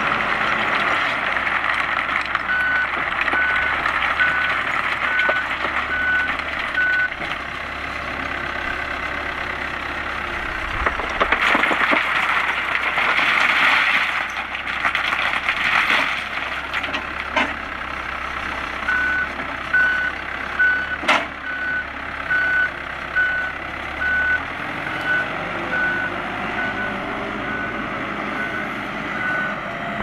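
Komatsu WB93R-5 backhoe loader's diesel engine running under work, with its reversing alarm giving short even beeps, about three every two seconds, early on and again from about two-thirds through. In the middle comes a louder rush of broken stone pouring out of the raised front bucket, and a little later one sharp knock.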